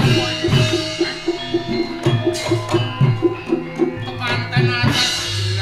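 Javanese gamelan ensemble playing the stage accompaniment: sustained metallic tones over a quick, even struck pattern of about three to four strokes a second, with low drum strokes.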